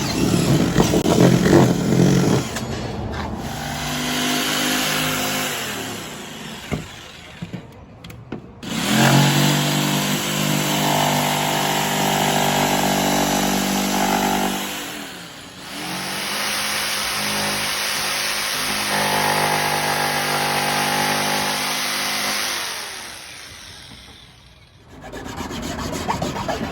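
Electric power saw cutting wood panels: three runs of a few seconds each, the motor winding up at the start of each cut and running down after it, with some clattering at the start.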